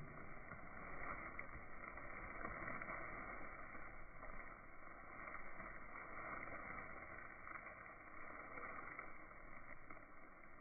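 Steady, muffled rushing noise of slowed-down outdoor ambience from a slow-motion recording, with no clear individual sounds in it.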